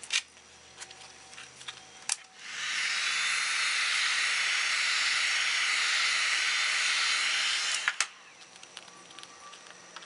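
Kobalt heat gun switched on with a click, blowing a steady hiss of hot air for about five seconds, then clicked off. It is heating the carbon-fibre vinyl so it will stretch over the handle's contours.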